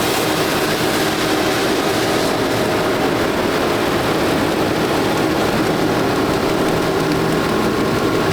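Nexat combine harvester working in a canola field: a loud, steady drone of engine and machinery with an even hum, holding constant throughout.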